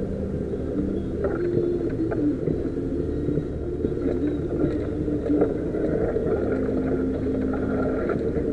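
A 4x4's engine and drivetrain running at low speed, heard from inside the cab: a steady low drone whose pitch shifts up and down, with a few faint knocks as the vehicle goes over the rough lane.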